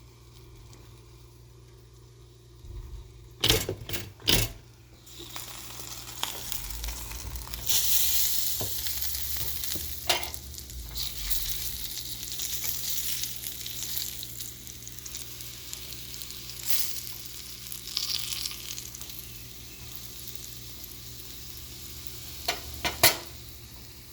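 Food sizzling in a hot frying pan, a steady hiss that swells about seven seconds in and carries on. Two sharp knocks come a few seconds in, and a couple more near the end.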